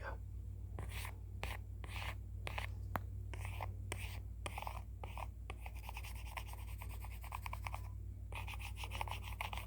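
Pencil sketching close to the microphone: single scratchy strokes about twice a second, changing a little past halfway into fast, dense back-and-forth hatching with a short pause near the end. A steady low hum runs underneath.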